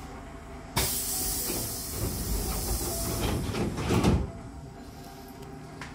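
Hankyu train's air-operated double sliding doors closing: a sudden hiss of air about a second in as the leaves start to move, then the two leaves meet with a thud about three seconds later.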